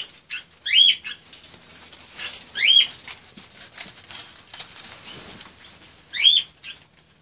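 A caged pet bird giving short chirping calls, each rising and then falling in pitch: one at the start, one about a second in, one near three seconds and one past six seconds. Light clicks and rustling run between the calls.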